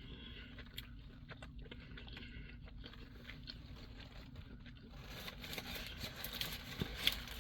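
Faint chewing and crunching of food, then, about five seconds in, the louder rustle and crackle of a food wrapper being handled.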